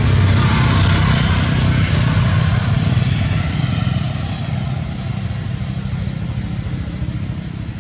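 A motor vehicle's engine, a steady low rumble with a hiss above it, louder for the first four seconds and then easing off.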